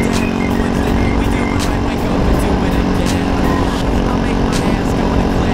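Beta RR 125 LC two-stroke enduro engine running at a fairly steady speed under way, its pitch holding level, with scattered short clicks and knocks over it.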